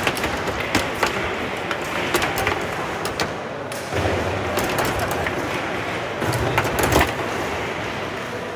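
Foosball table in play: the ball struck and knocked about by the rod-mounted players, with sharp clacks and knocks at irregular moments, a quick run of them near the end, over a murmur of voices in a large hall.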